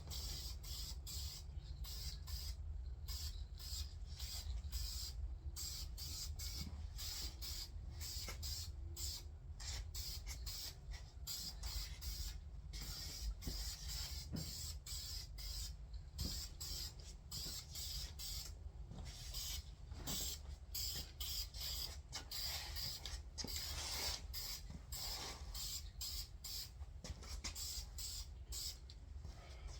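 Primer being sprayed onto a bare cast-iron engine block in many short hissing bursts with brief pauses between them, over a steady low rumble.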